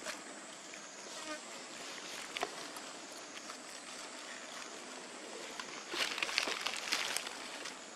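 A steady, high insect drone in the background. Dry leaves rustle and crackle for about a second near the end as the macaques shift about on the leaf litter.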